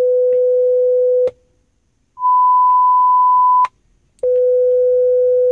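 Diagnostic test tones from a 2011 Ford Explorer's MyFordTouch Sony audio system, played through the car's speakers while the tones test steps from the stereo-right channel to an alert tone. There are three steady beeps of about a second and a half each, low, then an octave higher, then low again, with short gaps between them, and each ends in a click.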